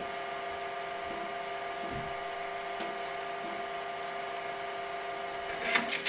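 Apple Lisa 2/5 running with a steady whine made of several held tones. Near the end its 400K diskette drive ejects the floppy with a short mechanical clatter and a sharp clunk.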